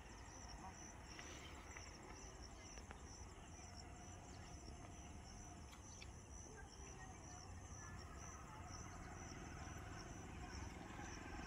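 Faint, steady chirping of insects: an evenly repeating high-pitched pulse that keeps going throughout, over a low background haze.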